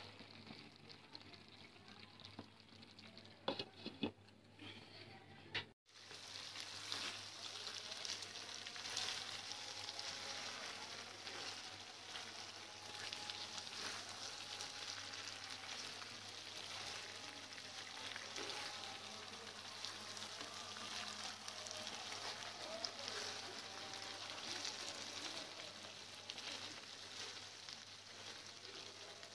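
Spiced beef frying down in a thick, dark masala in a nonstick pan, sizzling and crackling as a wooden spatula stirs it. This is the dry-frying (kosha) stage, where the liquid cooks off and the meat browns. The first few seconds are quieter, with a few knocks of the spatula. After a brief break about six seconds in, the sizzle comes in steady and louder.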